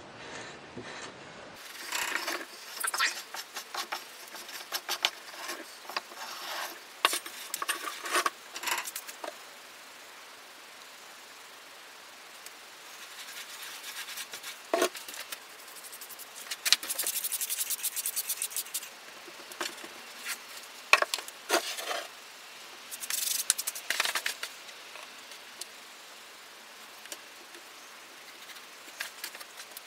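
Scraping and brushing across packed green molding sand in a wooden flask, by hand and with a tool, in irregular gritty bursts with a quick run of strokes around the middle.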